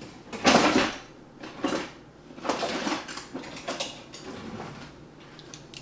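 Kitchen handling noise at a counter: a few short bursts of things being moved, set down and rustled, the loudest about half a second in.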